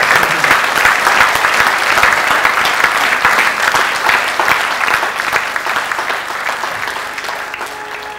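Audience applauding: dense, even clapping that gradually fades away over the last few seconds.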